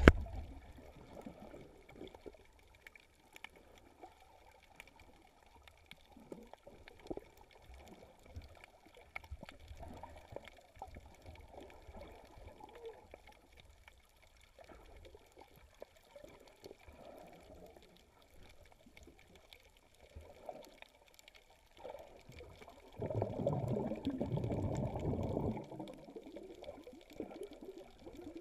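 Muffled underwater water noise through a GoPro's waterproof housing while snorkeling: faint sloshing and crackling, with a louder rush of water lasting about two and a half seconds near the end.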